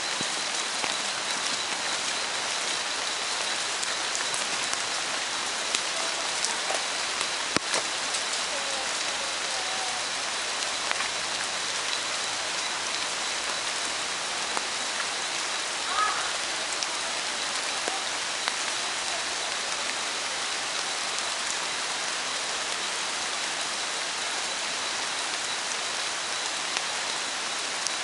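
Steady rain falling on rainforest foliage and a gravel path, with scattered drips and a few brief chirps around the middle.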